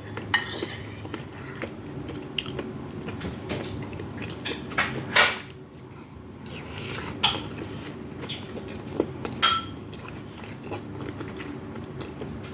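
Cutlery clinking against a plate several times during eating, with sharp clinks spread through, over a steady low hum.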